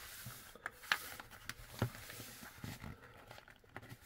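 Hands positioning a plastic action figure on its display stand: light scattered clicks and taps, with two sharper ones about one and two seconds in.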